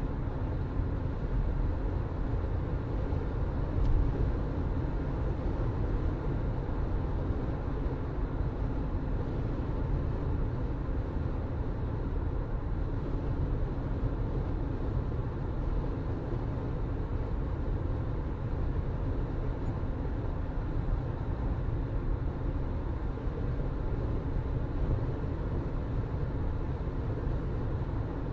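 Car driving on a road: a steady low engine hum and tyre rumble, with a brief knock about four seconds in.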